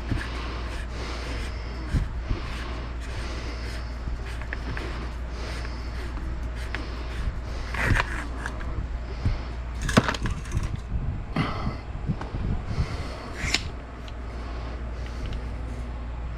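AR-type rifle parts being handled during disassembly: scattered clicks and knocks, the loudest about ten seconds in, over a steady low hum.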